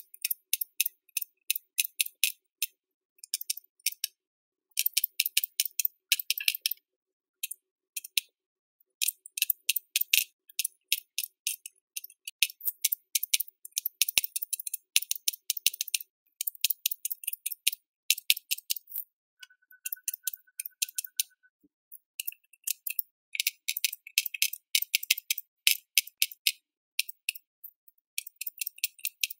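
Aquabeads bead-pen dispenser clicking as it drops beads one at a time onto the bead tray, in quick runs of clicks broken by short pauses.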